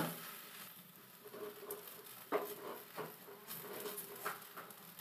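Oil sizzling faintly under a stuffed paratha on a hot tawa, with a few light scrapes and taps as a ladle spreads the oil over it.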